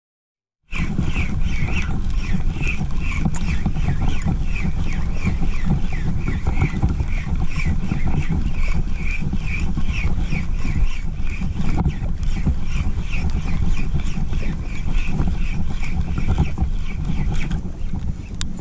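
Spinning reel (SGS8 8000) cranked steadily to retrieve a jig, a regular tick about three times a second with each turn of the handle, over a heavy low rumble. It starts abruptly just under a second in.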